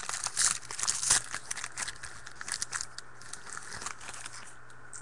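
Plastic wrapper of a trading-card pack crinkling and tearing as the pack is opened by hand, a dense crackle that thins out about three seconds in.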